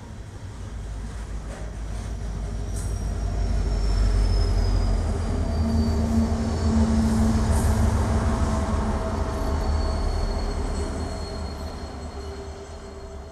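Coal train passing close by: the last hoppers clatter past on the rails, then diesel locomotives at the rear, a BNSF unit among them, go by with a deep engine rumble. The sound swells to a peak about halfway through and then fades, with a thin high wheel squeal sliding down in pitch in the first half.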